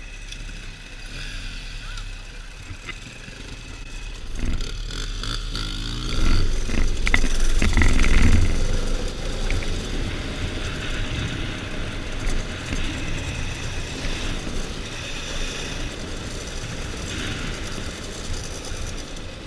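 Dirt bike engine running while riding, revving up and accelerating from about four seconds in, loudest around eight seconds, then settling back to a steady run.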